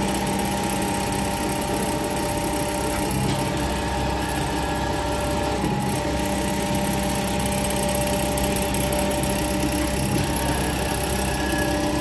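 Kent hydraulic surface grinder running with its table's cross travel driven at rapid speed: a steady machine hum whose lower tones shift a few times.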